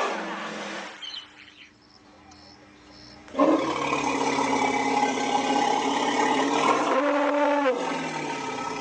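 Asian elephant calling: a loud call dies away with a falling pitch in the first second, then after a quiet stretch a second long, loud call starts abruptly about three and a half seconds in, shifts pitch near the seventh second and fades near the end.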